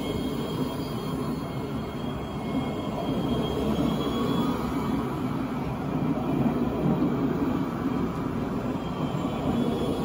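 Alstom Citadis 405 tram running past close by on its rails, a steady rumble that grows a little louder about three seconds in, with a faint high whine over it.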